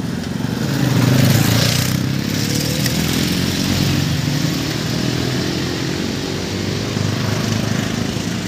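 Street traffic: motor vehicle engines running steadily, with a motorcycle passing close about a second in.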